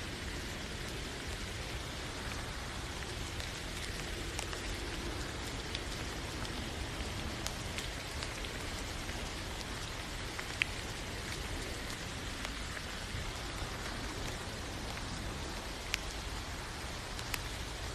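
Steady rain falling, a constant hiss with scattered individual drops ticking, and a couple of sharper drips standing out about ten and sixteen seconds in.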